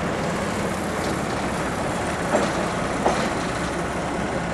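Steady diesel machinery noise from a track-laying work train, with two sharp knocks a little past the middle.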